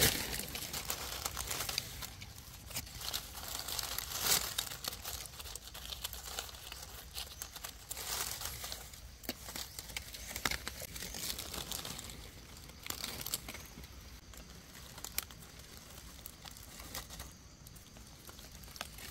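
Dry fallen leaves crackling and rustling as hands move through the leaf litter to pick mushrooms, a loose run of irregular crackles with no steady rhythm.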